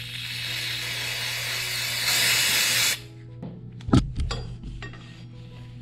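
Aerosol spray can hissing steadily onto the motorcycle's bare rear wheel hub for about three seconds, louder in its last second, then cutting off; about a second later a sharp metallic knock and a few lighter clicks. Background music throughout.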